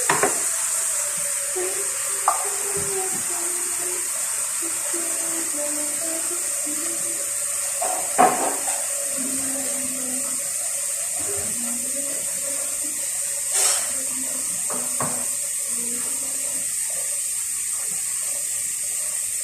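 Water running steadily from a kitchen tap into a sink, with a few short knocks, around 8 seconds and again near 14 seconds.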